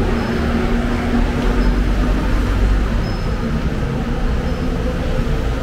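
Road traffic on a busy city street: a steady low rumble of vehicle engines and tyres, with a steady engine hum over it.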